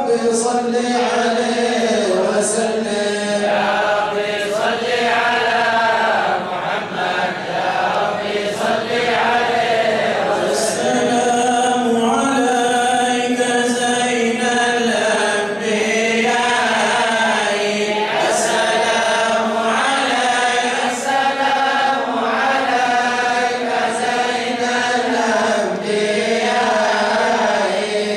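Men's voices chanting a mawlid in praise of the Prophet, a continuous sung melody that rises and falls in long phrases.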